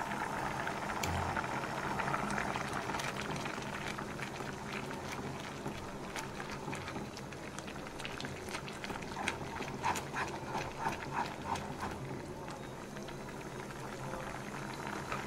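Thick beetroot halwa bubbling and popping in a pan as its milk cooks down, with a spoon stirring through it; a run of sharper pops comes about ten seconds in.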